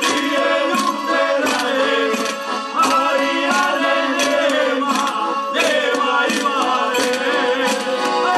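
Music: a Croatian folk song, voices singing over accordion and plucked tamburica-type strings with a steady beat.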